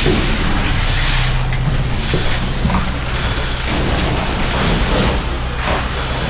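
Fire engine's engine running steadily, a constant low drone with a loud steady hiss over it.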